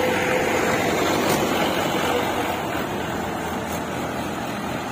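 Tractor engine running, a steady, dense drone that eases slightly after about two seconds.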